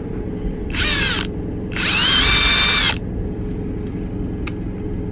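Matco Tools 20-volt brushless cordless impact wrench triggered with nothing on the anvil. About a second in, a short spin-up whine rises in pitch. Then the motor runs for about a second, whining up to speed and holding steady before it stops. A steady low hum runs underneath.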